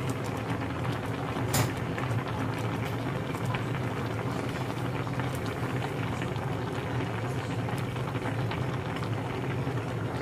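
Pot of fish in vinegar and water bubbling at a steady boil over a steady low hum, with one sharp click about a second and a half in as the glass lid is handled.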